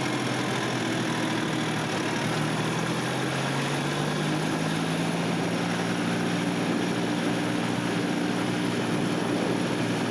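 Sonalika 50 hp 4WD tractor's diesel engine running steadily on the road while hauling a loaded trolley. The engine note rises slightly a few seconds in, then holds steady.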